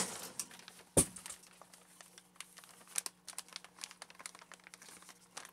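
A plastic bag of hay being handled, crinkling and rustling in many small irregular crackles, with a sharp knock at the start and a louder thump about a second in.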